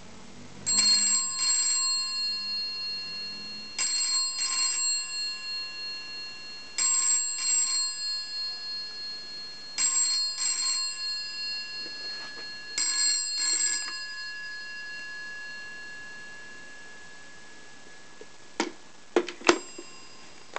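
GPO 312 Bakelite telephone's bell ringing for an incoming call: five double rings about three seconds apart, the bell tone lingering after each, then stopping. A few sharp clicks near the end.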